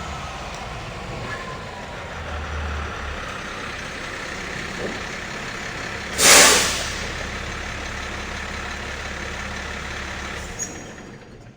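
Truck engine idling, with one short, loud air-brake hiss about six seconds in. The engine sound cuts off near the end, followed by a faint click.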